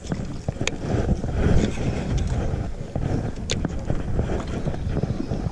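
Low, uneven rumble of wind and water around a small boat, with scattered small ticks and two sharp clicks, about a second in and past the middle.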